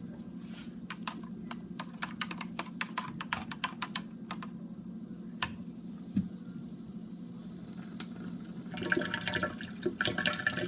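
Vinegar being stirred in a container, the stirring utensil clicking rapidly against its sides for a few seconds, then a few single knocks, over a low steady hum. Near the end comes a short stretch of rougher, watery noise.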